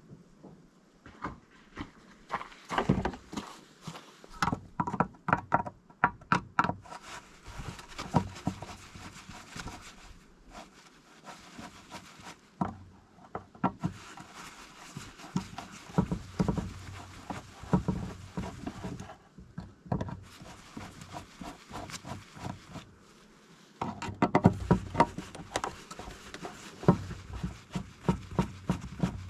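Irregular knocks and clatters in uneven clusters, with quieter stretches between.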